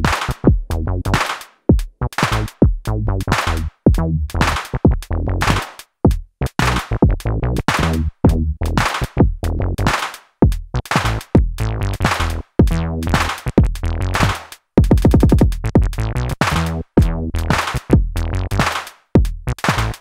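Dave Smith Instruments Tempest analog drum machine playing a loose, deliberately unquantized hip hop beat: kick, claps and hats under a synth groove. About fifteen seconds in there is a fast run of quickly repeated hits.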